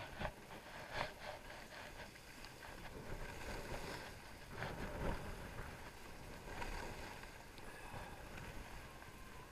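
Skis sliding on groomed snow, a steady hiss with louder scraping surges as the skis carve through turns, about a second in and again, loudest, around five seconds in.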